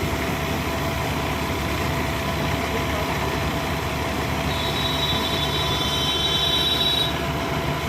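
Tractor engine running steadily while driving a tractor-mounted combine harvester. A high whine joins in about halfway through for two or three seconds.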